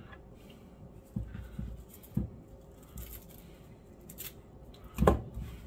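Kitchen knife cutting a wedge out of a raw onion: a few crisp slicing crackles and scattered soft knocks, with a louder knock about five seconds in.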